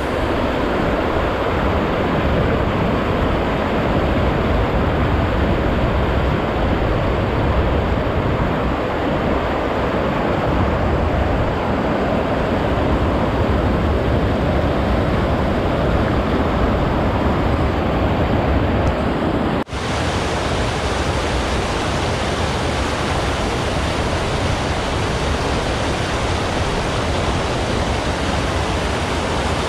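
Water rushing over a concrete river weir in a steady, even spill, heard up close. The sound drops out for an instant about twenty seconds in.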